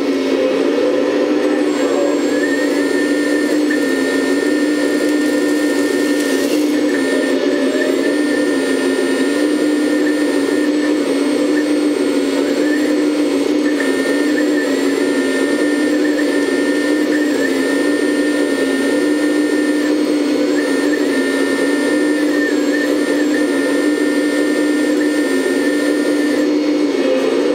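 Electric hydraulic pump of a 1/14-scale RC hydraulic excavator running steadily under load as the boom and bucket work, a loud motor hum with a higher whine that comes and goes every few seconds.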